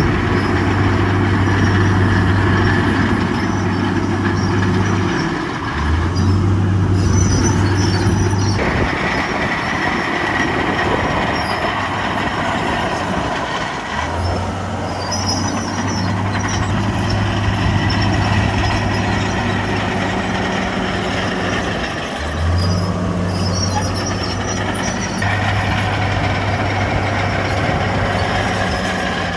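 Heavy diesel engines of earthmoving machinery running, a steady deep engine note that breaks off and comes back several times over constant mechanical noise.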